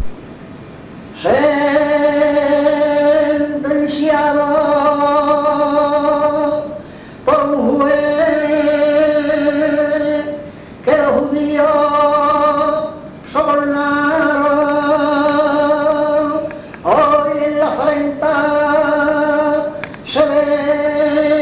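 A man's voice singing a saeta a rigor of Castro del Río unaccompanied. It comes in about a second in and holds long, wavering notes in several phrases, with short breath pauses between them.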